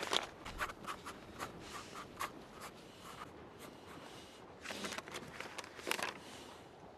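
Pencil scribbling on a spiral-bound notepad: a run of short scratching strokes, quieter in the middle, with louder strokes near the end.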